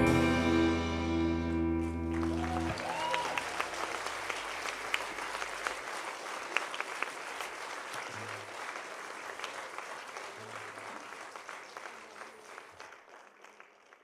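A rock band's last chord ringing out and stopping about two and a half seconds in, followed by an audience applauding, the clapping slowly dying away.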